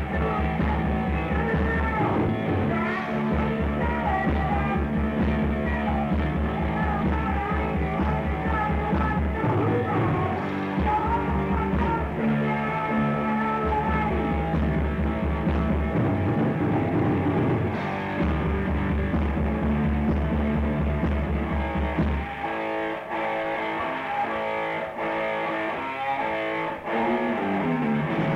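Rock band rehearsal recording with guitar and a driving, pulsing rhythm section, played back from a cassette tape and lacking high treble. Near the end the low rhythm drops out for a few seconds, leaving the upper parts, then comes back in.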